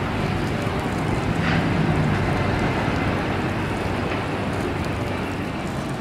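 Steady outdoor rumble with some wind noise, swelling slightly about a second or two in.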